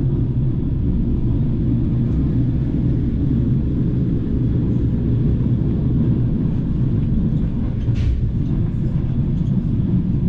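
Vintage BDZ passenger train carriage running along the track: a steady low rumble of wheels on rail, with one short click about eight seconds in.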